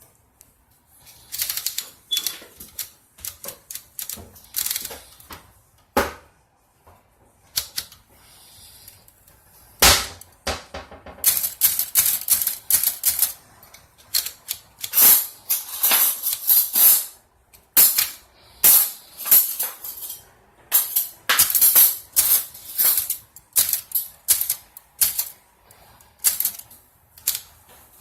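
1946 Remington Rand Noiseless Model 7 typewriter being typed on: runs of quick key clicks in bursts with short pauses, and one louder knock about ten seconds in.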